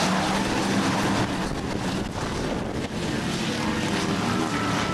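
Engines of several Bomber-class dirt-track stock cars running together around the oval in a steady, unbroken drone.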